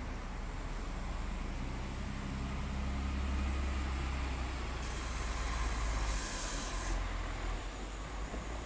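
Articulated bus driving past slowly, its low drive hum swelling and then fading. A burst of compressed-air hiss from the air brakes runs from about five to seven seconds in.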